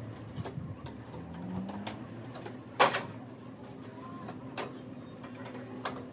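Small clicks and crackles of a thin piece of plastic sheet being folded and pressed around a screw by hand. One much louder sharp click comes about three seconds in.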